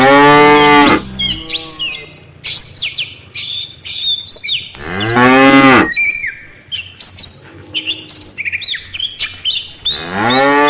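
Cattle mooing: three long, loud moos, one at the start, one about five seconds in and one near the end. Birds chirp in quick, high notes in between.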